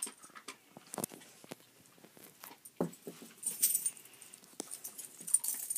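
A collie and a Lhasa Apso moving about and hunting for hidden dog biscuits. The sound is faint scattered clicks and taps, with a few short breathy sniffing noises.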